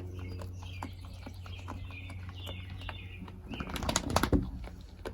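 Nigerian Dwarf goat chewing dry hay: irregular crisp crunching clicks. Soft bird chirps sound throughout, and a louder rustling burst comes about four seconds in.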